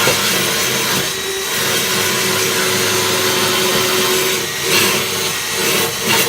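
Power drill in low gear spinning a wire wheel against a steel fuel tank, cleaning the metal around a pinhole leak: a steady motor whine under a harsh scraping hiss.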